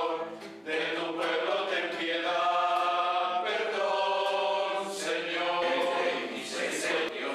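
A small congregation singing a hymn together in long held notes, with a brief break about half a second in.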